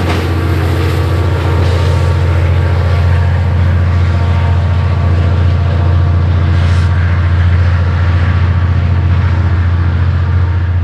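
Diesel-electric freight locomotive, a CSX EMD GP39-2 with a turbocharged V12 diesel, working under throttle as it pulls a freight train. It gives a loud, steady low drone.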